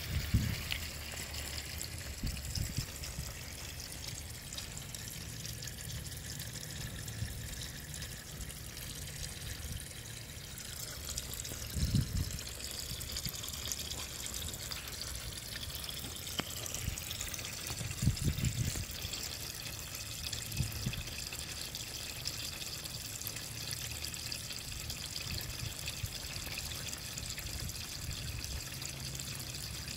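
A steady stream of liquid pouring out of an emptied vehicle gas tank and splashing into a shallow plastic tub, with a couple of short low thumps midway.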